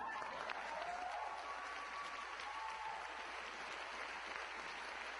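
Crowd applauding steadily, with a few cheers rising above the clapping in the first three seconds.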